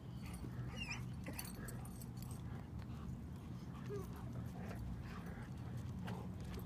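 A dog giving a few faint, brief whines over a steady low rumble.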